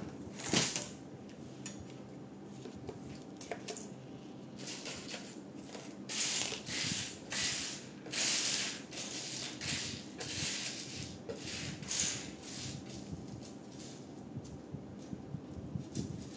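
Plastic LEGO pieces clicking and clattering as they are handled and searched through off to the side, in a run of short bursts with a sharp click about half a second in and the busiest stretch in the middle.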